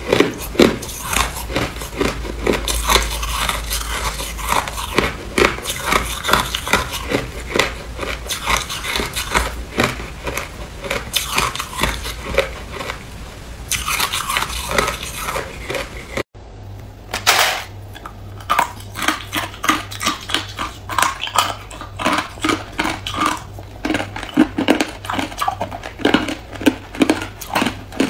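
A person biting and chewing hard clear ice close to the microphone: a dense run of sharp crunches and cracks, several a second, with a brief gap about sixteen seconds in.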